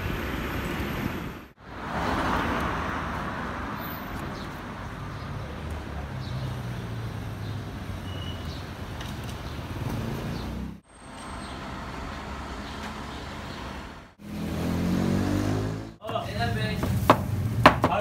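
A run of short clips with outdoor street and traffic noise and some voices, ending with a knife knocking sharply on a cutting board as onions are sliced.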